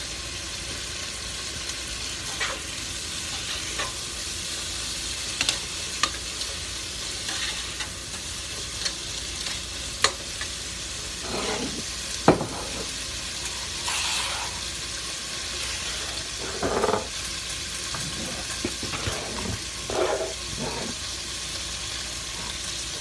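Sliced onions sizzling as they sauté in butter in a pot, with occasional knocks and scrapes of a spoon stirring them; the loudest knock comes about halfway through. The onions are being cooked until they start to turn golden.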